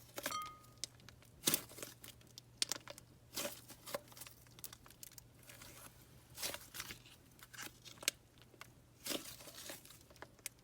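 Butter slime made of white glue, soft clay and baking soda being kneaded and pulled by hand, giving faint, irregular sticky crackles every second or so.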